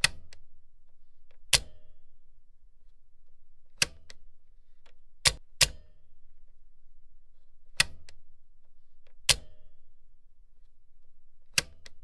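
Machine switch being clicked, eight sharp clicks roughly every one and a half to two seconds, two of them in quick succession around the middle, over a steady low hum.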